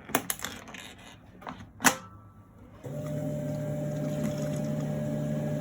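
Key and switch clicks on a YAG laser machine, the loudest just before two seconds in, then the machine powers on about three seconds in and its cooling system settles into a steady hum.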